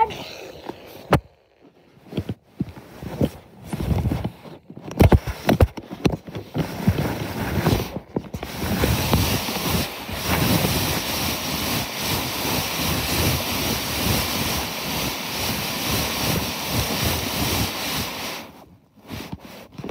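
Handling noise on a covered-over microphone: scattered knocks and rubs, then about ten seconds of steady rushing noise like wind blowing across the microphone, cutting off near the end.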